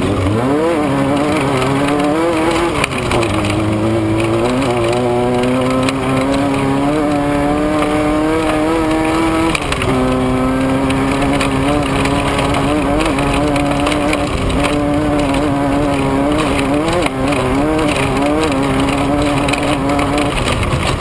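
Off-road race vehicle's engine running hard at high revs. Its pitch keeps climbing and dipping, with sudden drops about three and ten seconds in, over a steady rush of wind and road noise.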